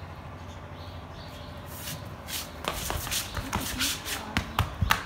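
Shuffling, scuffing footsteps on a marble floor. They start about halfway through as a quick run of scrapes and taps, and the sharpest taps come near the end.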